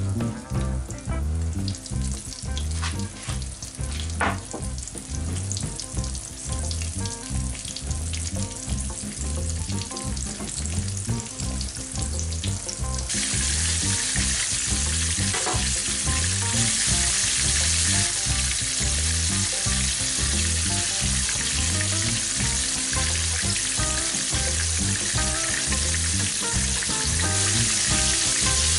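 Floured pork neck slices shallow-frying in hot oil, sizzling steadily, with a couple of brief pops. About thirteen seconds in the sizzle turns suddenly louder and brighter, with a second slice now in the oil.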